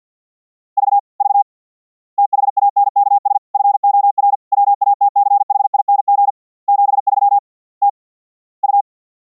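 Morse code (CW) as a single steady mid-pitched tone keyed on and off in fast dots and dashes. It comes in short groups, with a long run of characters through the middle and a few lone elements near the end. This is CW audio regenerated at the Mumble receiving end from Gaussian-noise CW notes.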